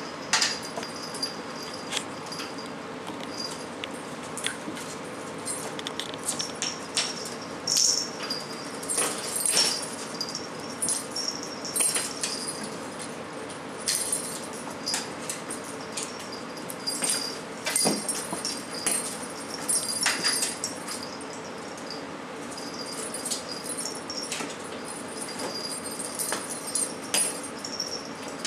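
A ferret batting at a small toy dangling on a string against a wall: irregular bursts of light metallic jingling and tapping. A steady hum runs underneath.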